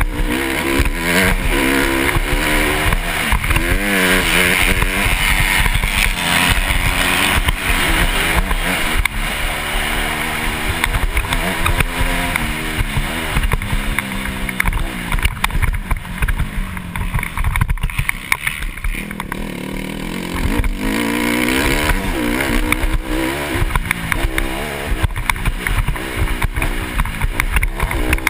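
Dirt bike engine revving up and down through the gears while riding over rough ground, heard from the rider's helmet. The revs rise and fall over and over, easing off briefly a little past halfway.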